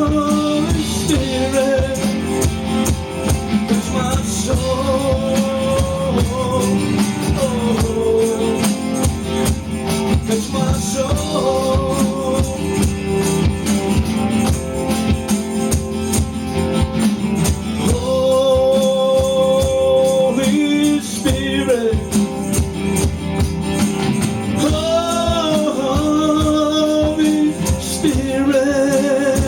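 Music: a song with a singing voice over a steady beat with tambourine-like percussion.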